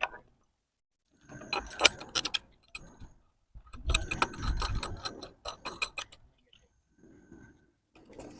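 Steel bolts, nuts and washers clicking and rattling against each other and the valve flanges in bursts of rapid clicks, with dull bumps in the longer burst.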